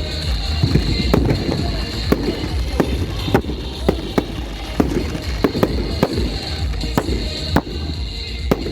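Fireworks going off in a string of sharp bangs, about one or two a second, over a steady low rumble.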